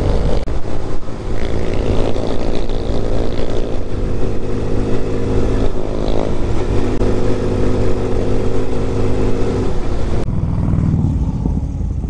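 Small 125cc single-cylinder motorcycle engine pulling hard at high revs, with wind rushing over the helmet camera. The engine note changes in steps a couple of times, then the engine eases off near the end.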